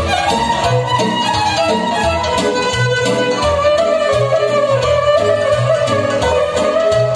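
Live band playing an instrumental dance passage over a steady, repeating bass beat, with no singing.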